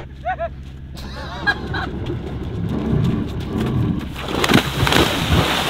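A few short high yelps, then a jet ski's engine running and a big splash about four and a half seconds in as a person dives into the water.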